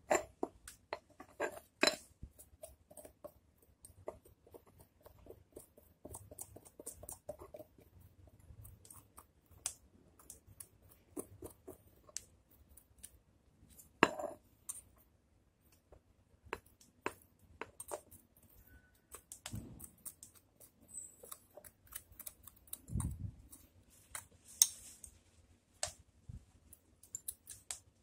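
Bonsai scissors snipping, a scattering of short sharp snips and clicks at irregular intervals, with one dull thump late on.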